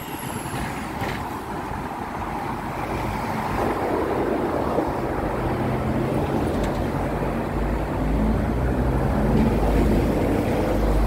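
Hong Kong double-decker tram running along its street tracks, heard from the upper deck with road traffic around it: a steady rumble that grows louder and deeper from about four seconds in.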